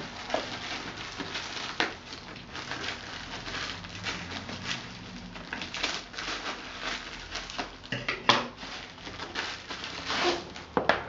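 Packaging rustling and crinkling as a parcel is unwrapped by hand, with many small irregular crackles.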